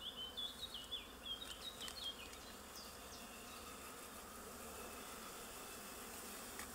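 Honeybees buzzing faintly and steadily around an opened hive. A run of quick high chirps sounds over the first two seconds, and a sharp click comes near the end.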